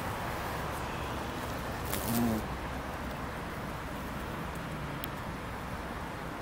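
A bumblebee buzzing briefly close by, about two seconds in: a short, low, steady hum over a constant background hiss.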